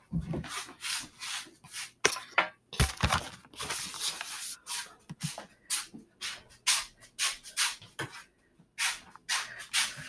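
Handling noise on a laptop's built-in microphone while the laptop is carried: irregular rubbing and scraping strokes with soft knocks, several a second.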